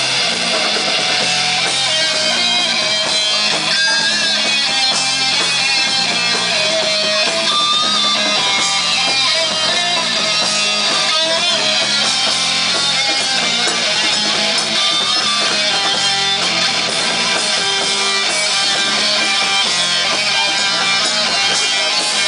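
Live rock band playing loud: electric guitars and a drum kit with a singer.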